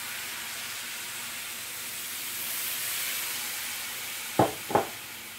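Beef broth poured into a hot stainless skillet of browned ground beef and flour, sizzling as it hits the pan; the sizzle swells about halfway through, then slowly eases off. Two short knocks close together about four and a half seconds in.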